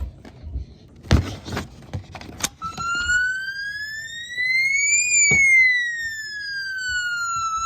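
Homemade fire alarm's electronic siren wailing: one tone sweeping slowly up for about two and a half seconds, then back down, then up again, starting about two and a half seconds in. Before it, a couple of knocks from the alarm being handled.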